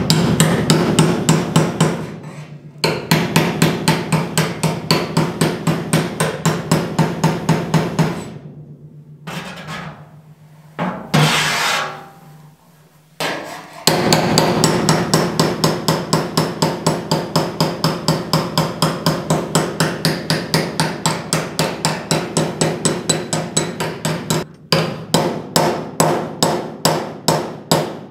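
Hammer tapping rapidly on the steel front edge of a car door, several ringing blows a second in long runs with a few short pauses. The blows are beating down a sprung door corner that flares out and sticks up past the fender.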